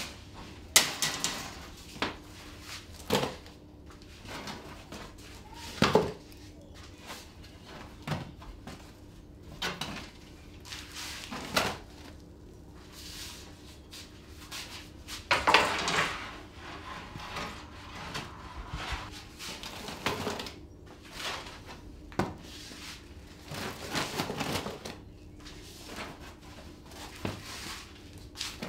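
Irregular knocks and thumps of crusty sourdough loaves being dropped and set into plastic bread crates, every second or few, with a faint steady hum underneath.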